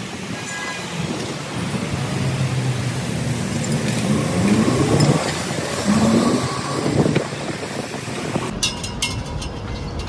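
City street traffic: vehicle engines running, with one revving up in a rising pitch about four to six seconds in. Near the end the sound changes abruptly and a few sharp clicks follow.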